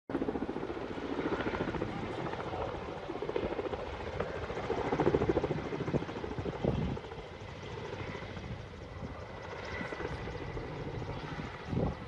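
Firefighting helicopter flying over, its rotor beating steadily. It is louder for the first seven seconds or so, then fainter.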